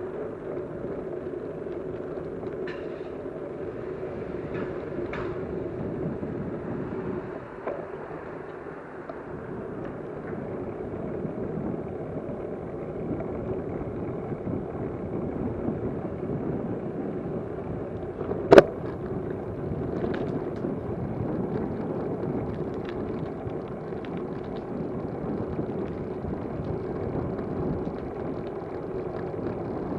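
Steady vehicle running noise, a continuous rumble, with one sharp click about two-thirds of the way through.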